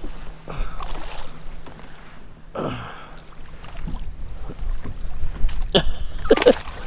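Water splashing and sloshing around a kayak as a hooked fish is fought and netted alongside, in several short bursts. A few short wordless grunts and exclamations from the angler come through, the loudest near the end.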